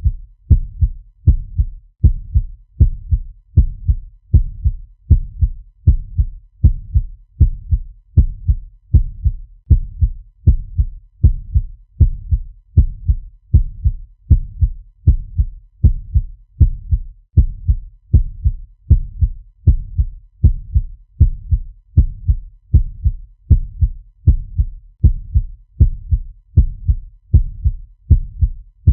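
Fast heartbeat sound effect: low, dull thuds in a steady, even rhythm, about a beat and a half per second.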